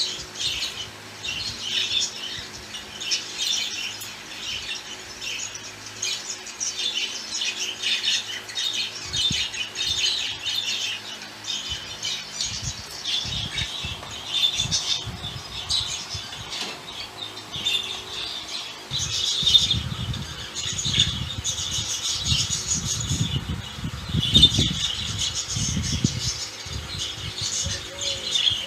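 Budgerigars chattering and warbling continuously in quick, scratchy calls. Low rustling and bumping sounds come in about two-thirds of the way through as the birds move about the cage.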